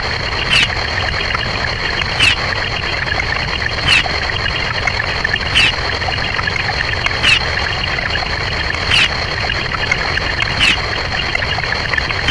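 A short, quick falling sound effect repeating evenly about every 1.7 seconds, about eight times, over a steady hissing, noisy background with a thin high tone.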